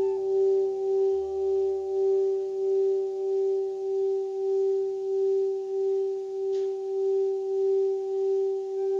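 Singing bowl rubbed around its rim with a mallet, singing one steady sustained tone with a fainter higher overtone. The tone swells and fades about once every 0.7 seconds as the mallet circles the rim.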